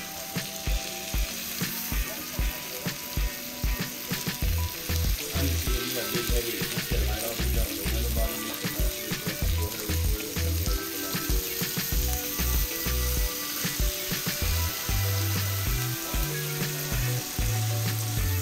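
Fish fillets sizzling as they fry in a pan, under background music with a steady beat and a bass line that comes in about four seconds in.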